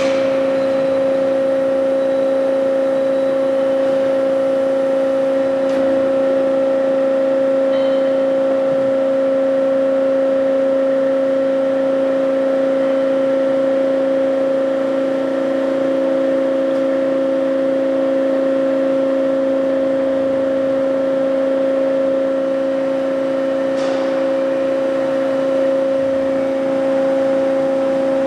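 Hyd-Mech H-40 horizontal band saw running under power, giving off a steady whine that holds one pitch, with a faint click about 24 seconds in.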